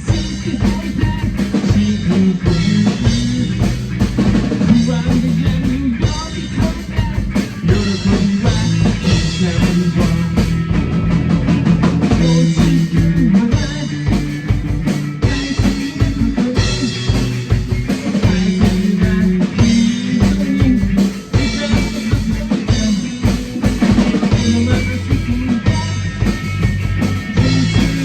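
Rock music: a full drum kit keeps a steady, dense beat of kick, snare and rimshots under held bass notes and other instruments.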